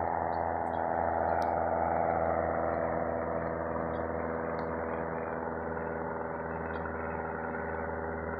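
Propeller airplane climbing away after takeoff: a steady engine and propeller drone that eases off slightly after a couple of seconds.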